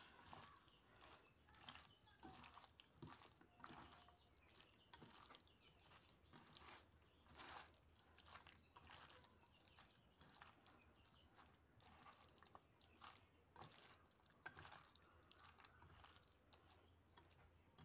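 Faint, irregular wet squishing and small clicks of a hand kneading chicken pieces in an oily spice marinade in a steel bowl.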